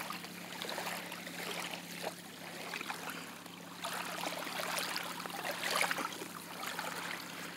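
Shallow wavelets of a rising tide washing in and out over sand at the water's edge, swelling several times, over a faint steady hum.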